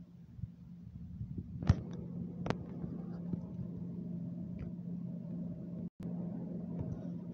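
Steady low hum of an enclosed room, with two sharp clicks about two seconds in and the sound cutting out for a moment near the end.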